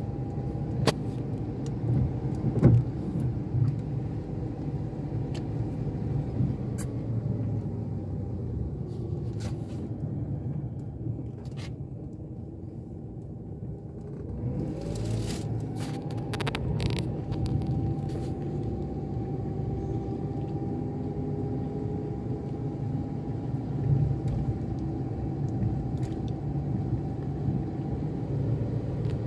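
Steady low rumble of road traffic, with a vehicle's rising whine about halfway through and scattered short clicks.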